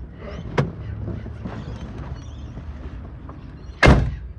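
A low steady rumble, with a sharp click about half a second in and a loud, short thump near the end. No horn tone sounds.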